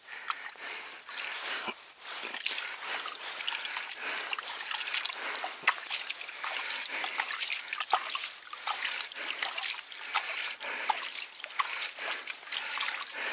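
Hands working in shallow, muddy water among sticks and dry grass: a continual run of small splashes and trickles with many little crackles.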